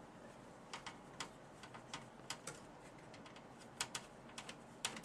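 Faint, irregular small clicks and ticks of a screwdriver driving the screw that fastens a graphics card's metal bracket to a PC case, a dozen or so sharp clicks, some in quick pairs.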